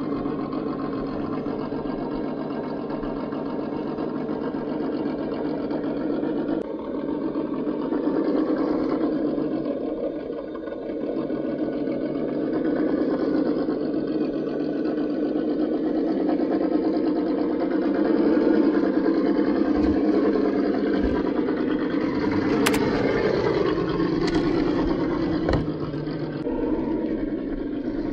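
1:10-scale RC crawler's electric motor and gear drive whining steadily under load, the pitch shifting with the throttle, with a few sharp knocks on rock in the second half.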